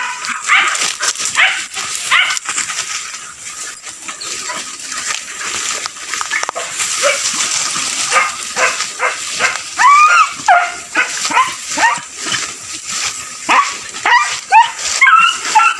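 Hunting beagles bay and yelp in short, high, rising-and-falling calls, one after another and sometimes overlapping, giving tongue on a chase. Underneath, brush rustles and snaps as someone pushes through the undergrowth after them.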